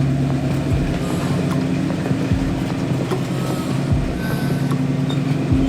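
Jeep CJ7's engine running steadily at low revs, a constant low hum with a dense rumble beneath it.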